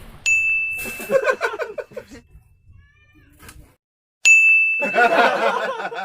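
A bright bell-like ding, struck twice about four seconds apart, each ringing on for a second or two while a voice talks over it.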